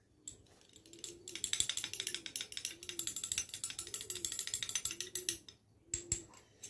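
Metal spoon stirring fast in a small glass shot glass: a quick, continuous run of clinks against the glass that stops about five and a half seconds in, followed by a couple of single taps.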